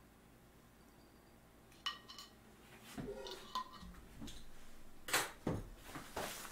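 Several sharp clinks and knocks of hard objects being handled. A clink about two seconds in rings briefly, and the louder knocks come about a second before the end.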